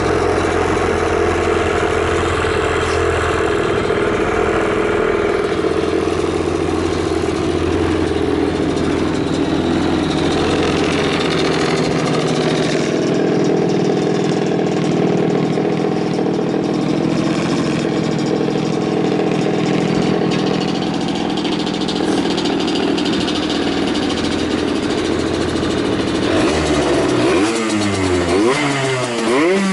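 Yamaha TZR50's 50 cc two-stroke single, breathing through an SP Tadao Jackal aftermarket expansion chamber, idling steadily. Near the end the throttle is blipped, so the revs rise and fall several times. It runs with no abnormal noise.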